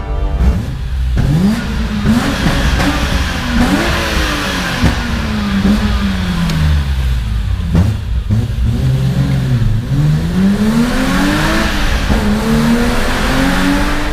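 BMW M5 E34 Touring's S38B38 3.8-litre straight-six revving, its pitch rising and falling several times, then climbing steadily over the last few seconds. The car is driving in a tunnel.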